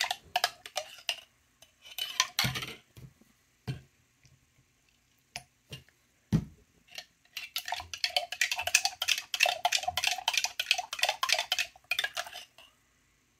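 Spoon stirring liquid dye in a small glass jar and clinking against the glass. A few scattered taps and one louder knock come first, then rapid, continuous clinking for about five seconds.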